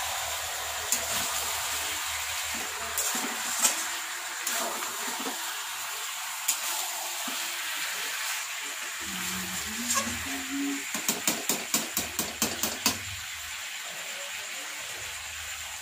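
Chicken curry sizzling in a steel kadai while a metal spatula stirs and scrapes it, with scattered clinks of the spatula on the pan and a quick run of clinks, about three a second, two-thirds of the way through.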